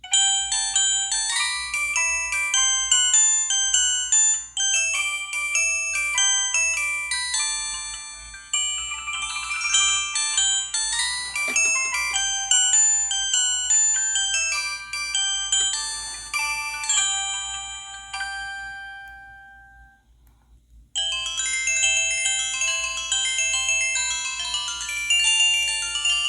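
Samsung SGH-T629 mobile phone playing downloaded ringtones: a quick melody of bell-like notes, several at once, fades out about 19 seconds in, and after a second of silence another ringtone starts.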